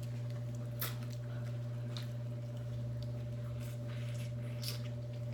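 Scattered wet squelches and a few sharp clicks of people eating a seafood boil, pulling apart crab legs and shrimp in butter sauce, over a steady low hum.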